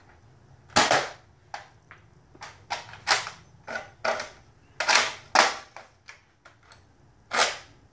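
Nerf First Order Stormtrooper blaster, a slide-primed spring blaster, being worked: a string of sharp clacks and shot-like pops at uneven intervals, about five loud ones among smaller clicks.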